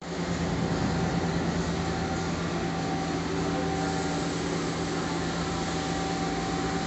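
Steady hum with a hiss over it from the Romi C420 CNC lathe running under power, with no cutting or impacts.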